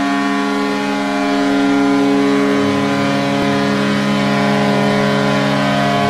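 Vancouver Canucks' 2020 goal horn blasting one long, steady chord of several tones, with a lower tone joining about halfway through.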